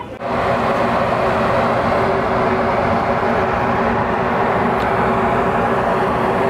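Loud, steady machine noise, like a large engine running, with a constant low hum beneath it. It starts abruptly just after the beginning and holds unchanged.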